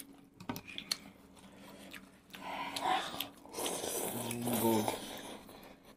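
Eating noises: a few soft chewing clicks, then noodles slurped in long noisy draws from about two seconds in, with a brief mumbled voice around four seconds in.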